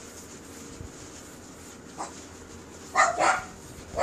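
A dog barking: one faint bark about two seconds in, then two loud barks in quick succession, and another near the end, over a steady background hiss.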